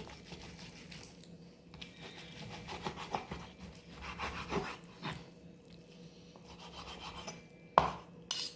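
Knife sawing back and forth through a grilled stuffed flank steak on a board, in irregular scraping strokes, with two sharp knocks near the end.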